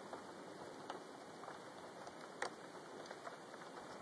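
Rain falling during a thunderstorm: a faint steady hiss with scattered drops ticking close by, one sharper tap about two and a half seconds in.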